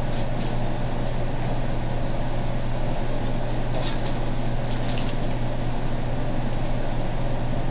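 Steady machine-like hum with a constant hiss, unchanging throughout. A few faint, brief high-pitched sounds come through about three and a half to five seconds in.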